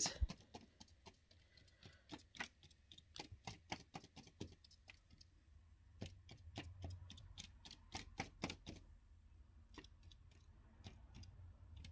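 Tip of a permanent marker tapping dots onto the white reflector sheet of an LED TV backlight: faint, quick, irregular ticks, about three a second, with brief pauses between runs.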